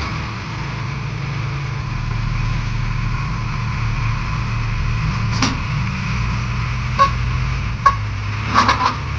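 Heavy diesel machinery engine running steadily, with sharp knocks about five and a half seconds in, at seven and eight seconds, and a quick cluster near the end.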